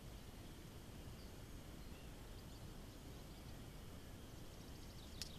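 Quiet rural field ambience: a steady low rumble with a few faint, distant bird chirps. About five seconds in there is a quick run of sharp clicks, the loudest sound here.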